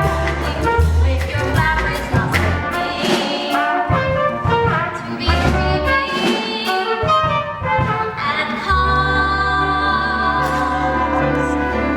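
Song from a stage musical: singing over band accompaniment, ending in a long held chord from about nine seconds in.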